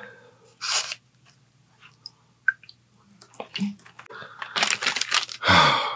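Close-miked wet eating sounds of a French dip sandwich soaked in jus: a brief squelch under a second in, a quiet stretch with a few small clicks, then a bite and wet, squishy chewing from about three seconds in, loudest near the end.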